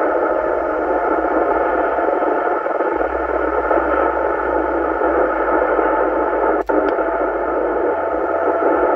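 Steady FM static and hiss from a transceiver's speaker tuned to 27.405 MHz, the output of an 11-metre CB duplex repeater, with no voice coming through clearly; a brief click and dropout about two-thirds of the way through.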